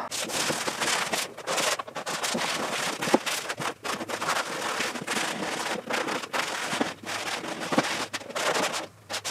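Green scouring pad scrubbing a plastic door panel with soap and water, in quick, uneven strokes.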